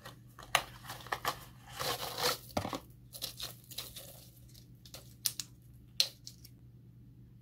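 Cold-medicine packaging being opened by hand: a cardboard box pulled open and a foil blister pack crinkled and torn. There is a louder tearing stretch about two seconds in, and two sharp clicks near the end.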